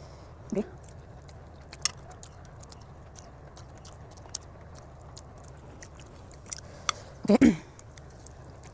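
A person eating instant ramen noodles off a fork: small wet mouth clicks and chewing sounds, with one louder, short burst about seven seconds in.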